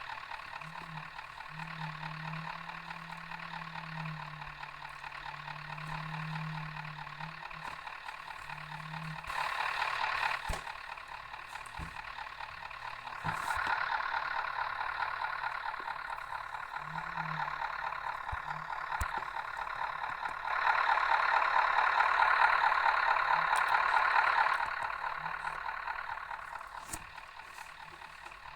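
Interior noise of a MAZ-105 articulated city bus under way: a steady engine and road hum with a rattling texture and a few sharp clicks and knocks. It grows louder three times, briefly about ten seconds in, then from about thirteen seconds and most strongly from about twenty-one to twenty-four seconds.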